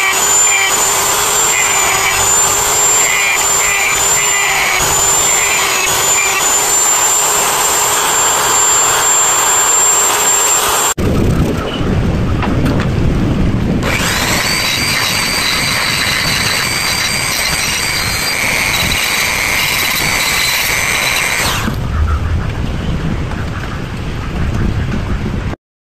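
Small handheld electric rotary tool (die grinder) running at a steady high whine as its burr grinds and shapes a coconut-shell carving. About eleven seconds in the sound cuts to a lower noise, and a few seconds later a rotary tool whines again at a lower pitch for about eight seconds before dying away.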